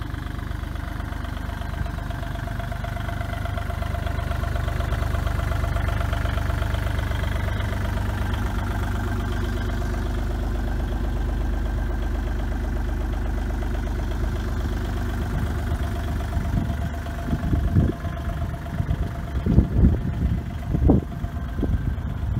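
Bobcat E35 compact excavator's diesel engine idling steadily. Near the end, several irregular low thumps come through over the engine.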